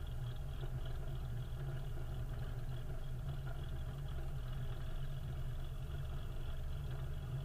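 Cessna Skylane's piston engine running steadily at low power on the ground, a constant low hum heard inside the cockpit.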